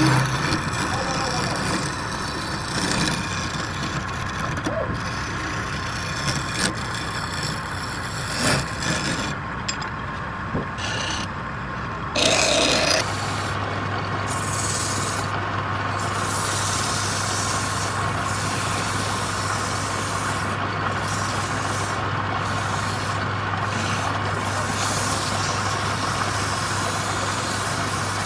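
Wood lathe running, with irregular scraping and rubbing against the turning wood in the first half. A steady low hum joins about halfway through and holds to the end.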